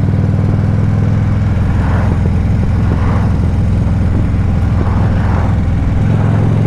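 Harley-Davidson Ultra Classic Limited's V-twin engine running steadily while the motorcycle cruises down the road. The engine note changes near the end.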